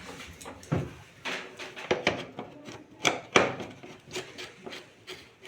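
A string of irregular knocks and clicks from parts and covers of a washing machine being handled and set down during repair.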